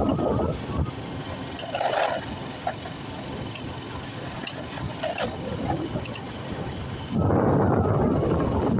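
A vehicle travelling along an unpaved dirt road: steady engine and road noise with a few sharp clicks. It gets louder about seven seconds in.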